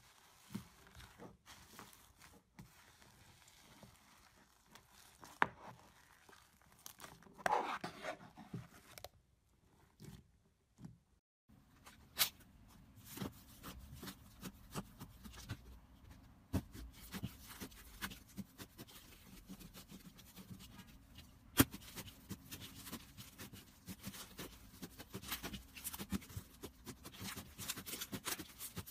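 Hands pressing and squeezing slime: soft crackling with small pops and sticky clicks as air pockets in the slime burst. The crackling is sparse at first, stops briefly about ten seconds in, then comes back denser.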